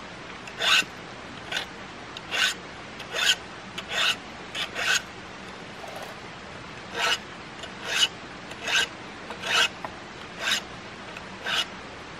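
Hand tool rasping on wood in about a dozen short, separate strokes, roughly one a second, with a pause of about two seconds in the middle.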